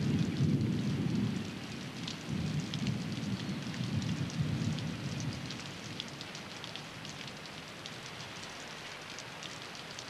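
Rain falling, with scattered drops ticking sharply, and a low rumble that swells over the first half and then fades, in the manner of distant thunder.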